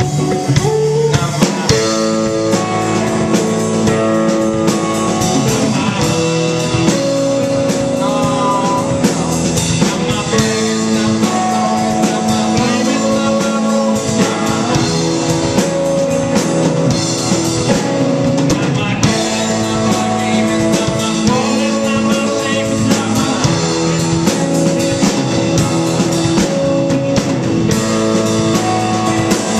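A rock band playing live, with electric guitar, bass guitar and drum kit, and a man singing over it.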